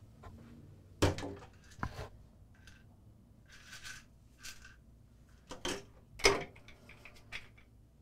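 Plastic pill bottles being handled at a medicine cabinet: several sharp clicks and knocks, the loudest a little after halfway, with three short rattles in between.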